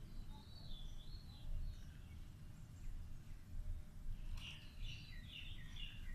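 Birds singing: a warbling call in the first second and a half, then a busier run of chirps from about four seconds in, over a steady low rumble.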